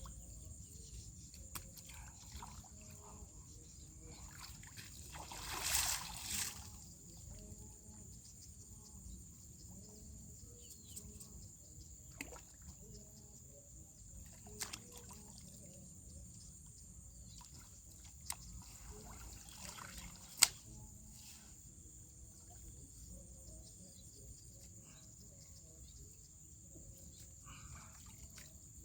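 Water sloshing and trickling. A louder splash comes about six seconds in, followed by a few small sharp knocks. A steady high-pitched insect drone runs behind it all.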